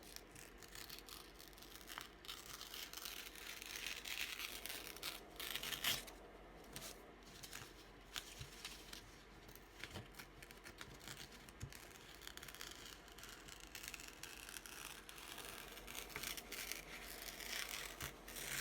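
Paper being torn slowly by hand in several long rips, with rustling and small clicks as the paper is handled.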